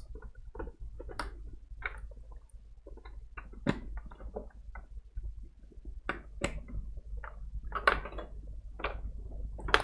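Irregular sharp plastic clicks and light knocks as cable connectors are handled and pushed back onto a desktop computer motherboard's headers.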